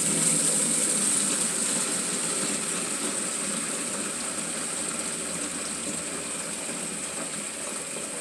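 Water from a hose-fed charcoal filter pouring steadily into a gallon jug, a continuous rushing splash that gradually gets quieter.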